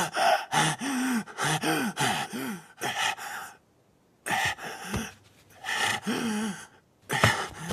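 A man gasping and groaning in pain: quick ragged breaths with short voiced moans that rise and fall in pitch, coming in rapid bursts, with a brief silent pause a little past halfway.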